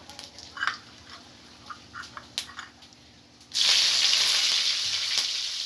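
Whole spices (cardamom, cinnamon, mace) crackling lightly in hot oil in a wok, then a loud sizzle about three and a half seconds in as bay leaves go into the hot oil.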